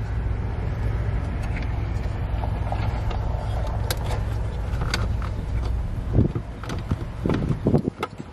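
Small plastic clicks and knocks as a pickup's centre console lid hinge is handled and clipped into place, with a steady low rumble underneath that stops about six seconds in. A few louder knocks come near the end.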